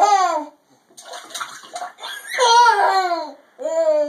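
Water splashing and sloshing in a toilet bowl as a toddler's hand slaps and stirs it, broken by three high, falling vocal cries, one at the start, one about two seconds in and one near the end.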